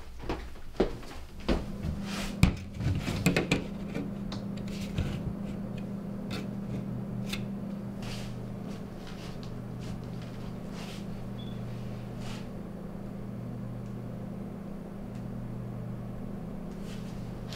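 A few sharp knocks and clatter in the first seconds, then a steady low hum with scattered faint clicks.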